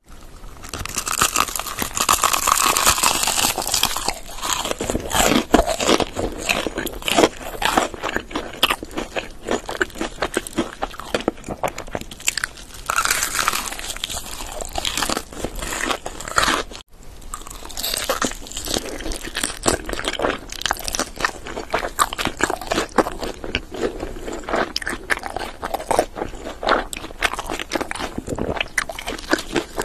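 Close-miked eating of crispy fried chicken: crackling crunches as the fried coating is bitten, followed by steady chewing. The sound breaks off for an instant about halfway through.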